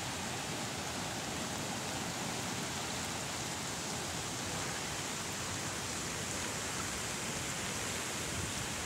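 Muddy floodwater rushing, heard as a steady, even rush of noise that doesn't change.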